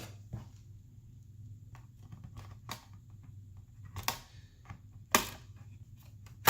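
Scattered light clicks and taps of a plastic laptop back panel being handled and lined up on the laptop's base. The sharpest knock comes about five seconds in, and a low steady hum runs underneath.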